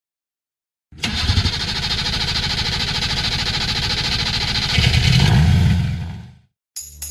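An engine running loud, starting abruptly about a second in, swelling briefly near the end and fading out.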